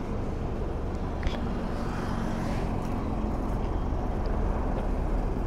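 Steady low rumble of motor-vehicle traffic at a highway roadside, with a faint engine hum in the middle and one small click.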